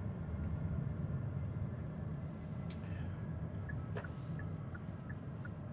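Road and tyre rumble inside an electric car's cabin while driving, with a brief hiss in the middle. Past the middle a light, regular ticking starts, about three ticks a second.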